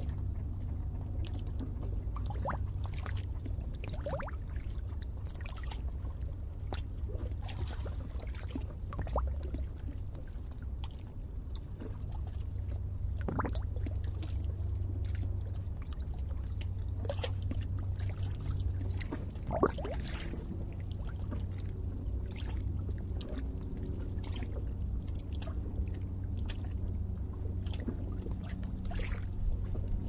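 Water bubbling and gurgling at the edge of a lake: irregular small plops over a steady low rumble, with one sharper plop about two-thirds of the way through.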